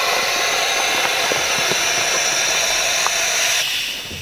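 A loud, steady mechanical hiss with a whine in it, cutting off near the end.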